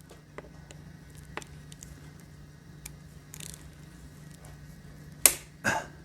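Hand tools working on a transmission drain plug: scattered light ratchet clicks, then two sharp metallic clicks about five seconds in.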